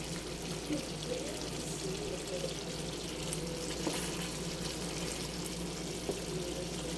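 Chicken adobo simmering in a pan on an electric hob, a steady bubbling sizzle of the sauce.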